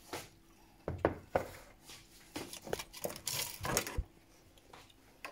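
Irregular light knocks and clatter of dishes and utensils being handled on a kitchen counter.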